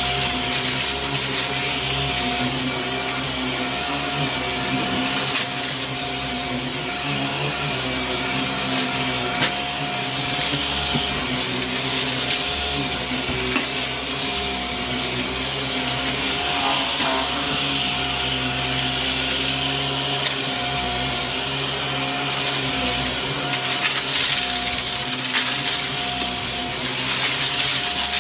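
Vacuum cleaner running steadily, with scattered sharp crackles and ticks as crunchy debris is sucked up.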